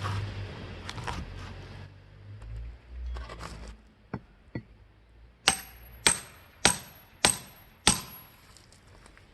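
Firewood being split with a metal tool: five sharp, evenly spaced strikes with a bright metallic ring, a little under two a second. Before them come a low rumbling and two light knocks.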